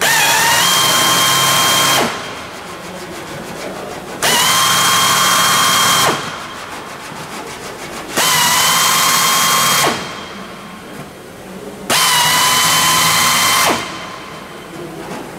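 Pneumatic drill with a countersink cutter countersinking rivet holes in aluminium aircraft skin: four runs of about two seconds each, a steady whine over an airy hiss that settles in pitch as each one starts, with short pauses between holes.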